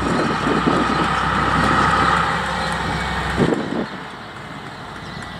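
Diesel-electric locomotive standing with its engine running: a low rumble with a high whine on top. The rumble drops away about three and a half seconds in and the sound gets quieter.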